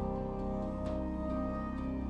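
Slow ambient new-age music, tuned to 432 Hz: sustained pad-like tones and low drones, with notes shifting gently and faint soft chimes.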